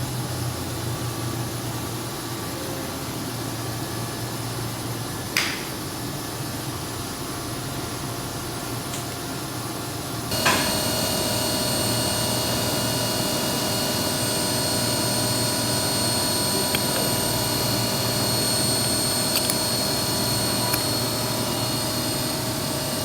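CNC machine running with a steady hum, and a single sharp click about five seconds in. About ten seconds in it abruptly gets louder with several steady high-pitched whining tones, which hold to the end.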